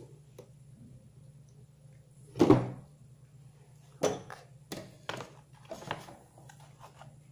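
Clear plastic storage boxes being moved and handled. There is one heavy thunk about two and a half seconds in, then several lighter plastic knocks and clicks.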